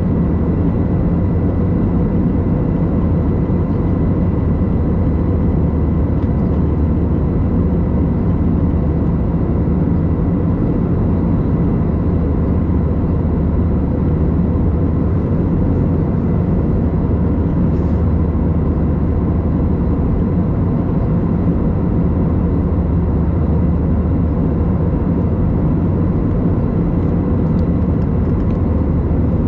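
Steady cabin noise of an Airbus A321 heard from a window seat over the wing: an even low engine drone with a faint, steady high whine on top.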